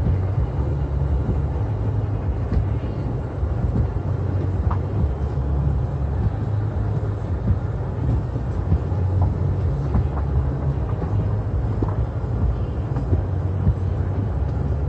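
Steady low rumble of a car rolling slowly, heard from inside the cabin, with occasional faint ticks.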